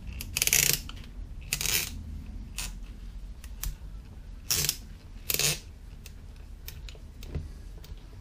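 Screwdriver prying and scraping at the shaft end of a small brushed DC motor, metal on metal: a handful of short, sharp scrapes and clicks, the loudest in the first two seconds and a pair about halfway through.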